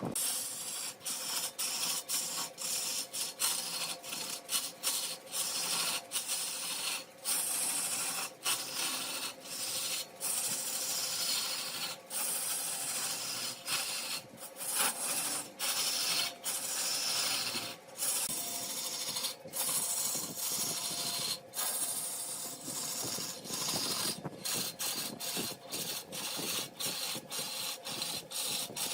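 Large wood lathe with a tool scraping and cutting against the spinning wood: a continuous rasping hiss over a steady hum, broken again and again by brief gaps where the tool lifts.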